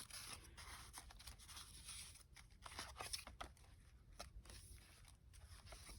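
Faint rustling and soft clicks of paper being handled, the pages of a handmade paper journal being turned and touched.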